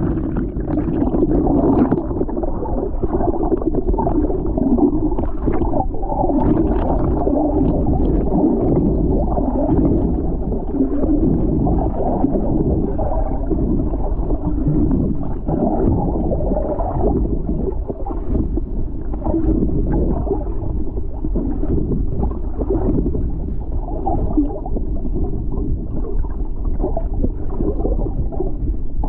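Continuous muffled water gurgling and sloshing with many small irregular surges, dull and without high tones, like water heard through or around an action camera's waterproof housing at the surface.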